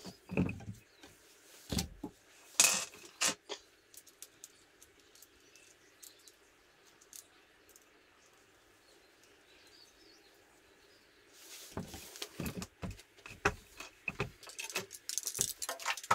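Light metal clinks, knocks and rustling from hands handling hoses, hose clamps and tools while fitting a silicone coolant hose to a motorcycle. There is a cluster of clicks at the start, a quiet stretch in the middle, and a denser run of clinks and rustles from about two-thirds of the way in.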